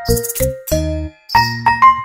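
Background music: a pitched melody over a bass line with drum hits, breaking off briefly about a second in.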